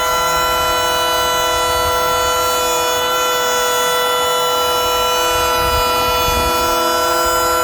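DeWalt 20V XR brushless cordless hand planer running at full speed while planing wood, with a steady, unchanging whine.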